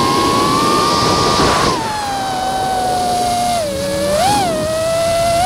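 DJI FPV drone's motors and propellers whining over a rush of air. The pitch drops about two seconds in as the throttle eases, then dips and swoops back up briefly near the end.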